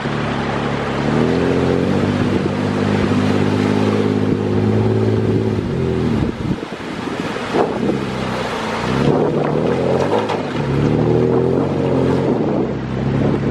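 A four-wheel-drive's engine revving as it fords a shallow, rocky river. The revs step up about a second in, hold, then fall away around six seconds and build again near the end as the vehicle climbs out. Water splashing and rushing, with wind on the microphone, sit under it.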